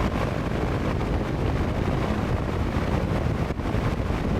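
Vintage AMC 10-2T-4 metal box fan running steadily on high speed with its air blowing in, a steady rush of air with a low hum from the motor, whose exposed bearings have just been oiled.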